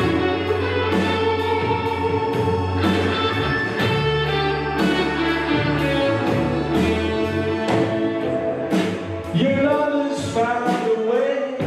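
Gospel music with singing over a band: steady bass, guitar and a regular beat.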